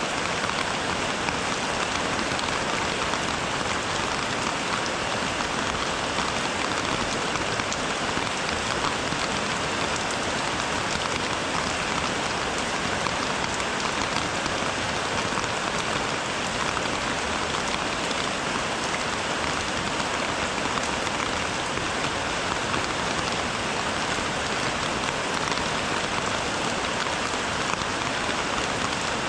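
Steady rain falling, an even hiss that keeps on without let-up.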